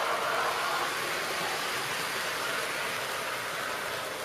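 HO gauge model passenger coaches rolling past on the track, a steady rolling rumble that slowly fades as the end of the train moves away.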